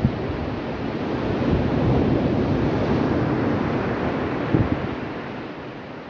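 Sea surf washing onto a beach with wind buffeting the microphone. It swells about a second and a half in and fades over the last second, with a couple of brief knocks.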